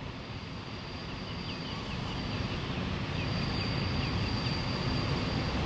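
Alco diesel locomotives, with NSW 44 class 4490 leading, running slowly with a passenger train, their low engine rumble growing steadily louder as they approach. Birds chirp over it, and a thin high steady whine comes and goes.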